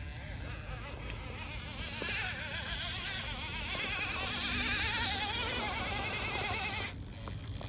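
Electric motor and gearbox of an RC rock crawler whining, the pitch wavering as the throttle is worked. It grows louder a couple of seconds in and cuts off suddenly near the end.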